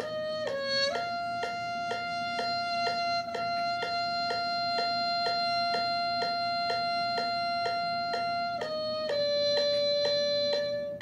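Solo trumpet: two short notes, then one long held note of about eight seconds, then two more notes. A steady click sounds about three times a second throughout.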